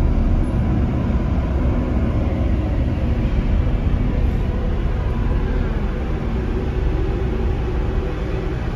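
Steady low rumble of a car's engine and tyres as it creeps along a ferry's steel car deck, heard from inside the cabin.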